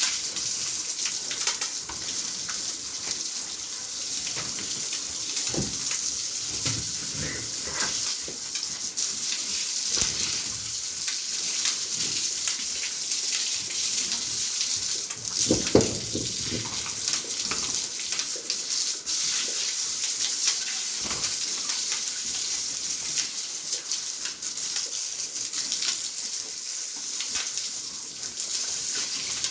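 Running water, a steady hiss, with one brief louder sound about halfway through.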